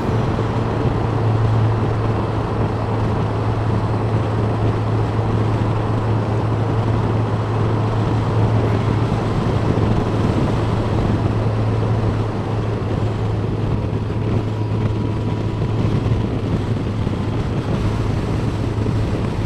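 Motorcycle engine running at a steady motorway cruise, a constant low drone, mixed with wind and road rush on the bike-mounted microphone. The ride runs through a road tunnel and comes out into the open near the end.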